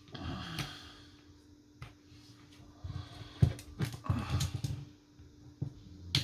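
Small clicks, taps and rustling of a phone's internals being worked with a small tool while its flex cable connectors are unplugged from the board, with a few sharper taps and low bumps around three and a half to four and a half seconds in.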